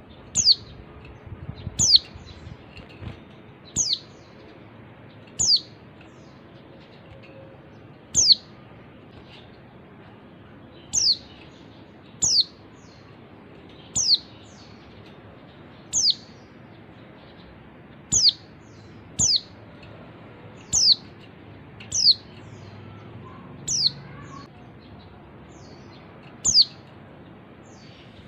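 Female white-eye (pleci) giving short, high calls that each sweep downward, one every one to two seconds, about fifteen in all, over a steady low hiss.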